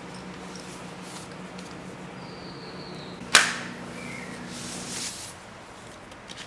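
A single sharp smack or crack a little over three seconds in, ringing briefly, over a steady low hum.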